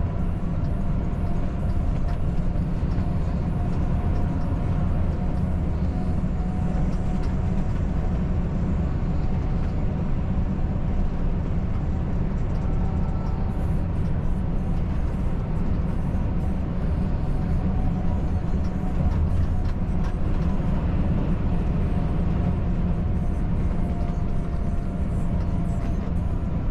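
Volvo FH540 truck's diesel engine and tyres at a steady highway cruise: an even low drone with faint steady tones above it and no gear changes or sudden sounds.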